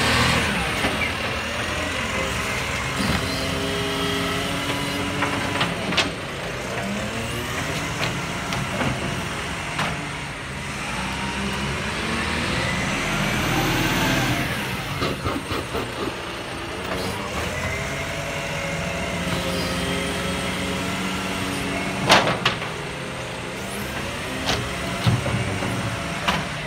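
Mercedes-Benz Econic side-loading garbage truck's diesel engine running, its pitch rising and falling repeatedly as the truck works the bins and pulls away. Sharp knocks cut through about six seconds in and, loudest, a little past twenty seconds in.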